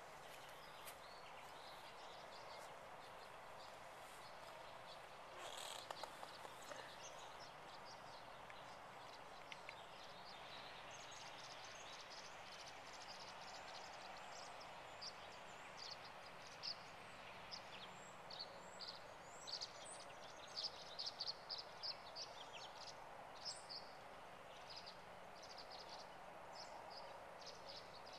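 Wild birds chirping at dusk: short, high chirps and calls, sparse at first and coming thick and fast in the second half, over a faint steady background hiss.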